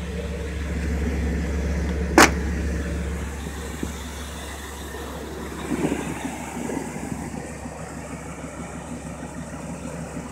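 1994 Chevy C1500's 350 throttle-body-injected V8 idling through a Flowmaster single muffler, a steady low hum. A single sharp knock about two seconds in is the loudest sound.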